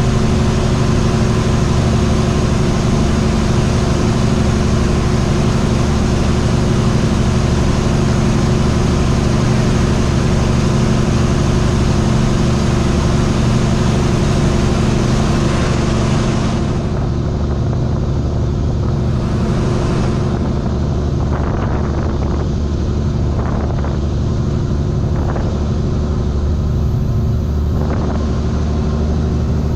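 Semi truck's diesel engine running steadily while driving, hauling a loaded refrigerated trailer, with a low droning hum under a rushing road noise. About halfway through the higher hiss drops away, leaving mainly the engine hum, with a few faint knocks after that.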